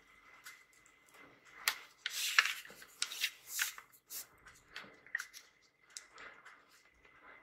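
Brown kraft-paper envelope crinkling and rustling in the hands as it is turned over and unfolded, in short bursts with a denser stretch of crackling about two seconds in.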